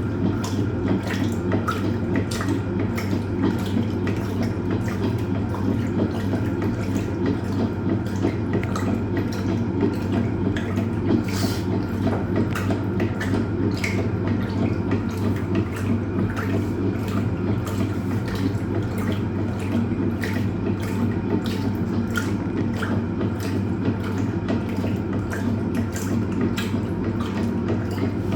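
Hoover Automatic 820 washing machine agitating a full load during the wash: water sloshing and splashing over a steady motor hum.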